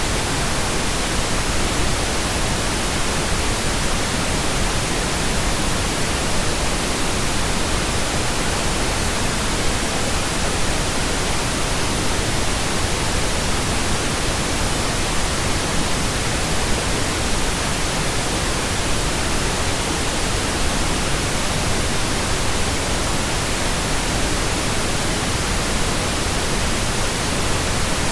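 Steady pink noise generated in Audacity: an even, unchanging hiss spread across all pitches, fuller in the lows than white noise.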